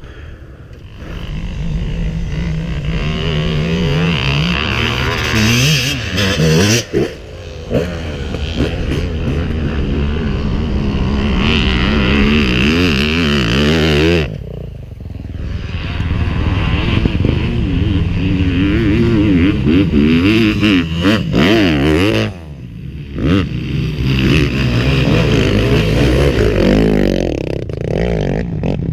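Dirt bike engine running under way off-road, its revs rising and falling with the throttle; several times the engine note drops off sharply for a moment before picking up again.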